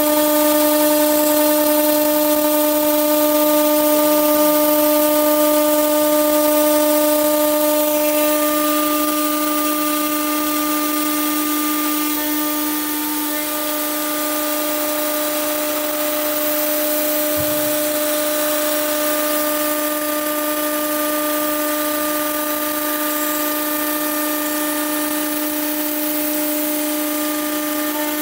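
CNC machining centre's 9 kW spindle whining steadily as an end mill cuts a slot in 5 mm aluminium extrusion, with a hiss of cutting over the whine.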